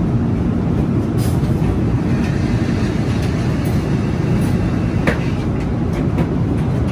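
Steady low rumble of an Airbus A380-800's cabin in flight: engine and airflow noise heard inside the aircraft, with a light click about five seconds in.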